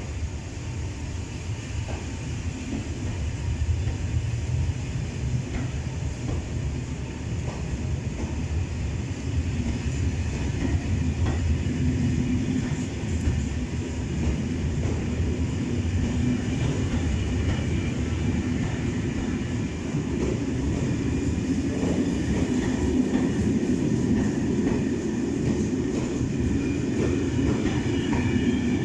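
Intercités Corail passenger coaches rolling slowly past along the platform, a steady low rumble with wheels clicking over rail joints, growing gradually louder as the train picks up speed.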